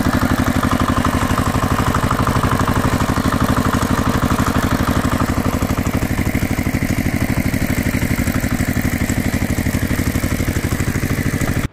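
Tractor engine idling with a fast, even chugging beat, cutting off abruptly at the end.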